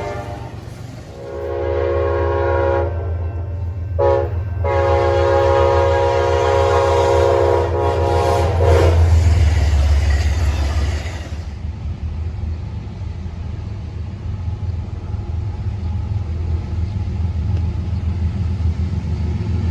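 Train horn sounding a blast, a short toot, then a long blast over the heavy low rumble of a passing train. After about eleven seconds the horn has stopped and the rumble drops to a quieter, steady rolling of the cars.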